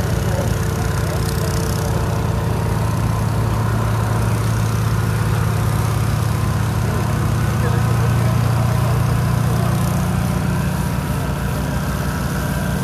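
Fire truck's engine idling steadily, a low even hum that swells slightly about eight seconds in.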